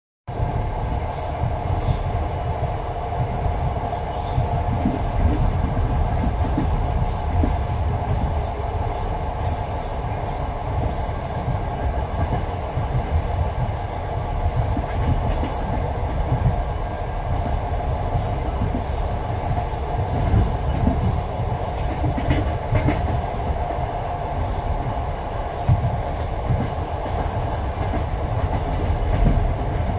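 Train wheels clattering over the rail joints as a railway carriage runs along, over a continuous low rumble. Sharp clicks recur irregularly throughout.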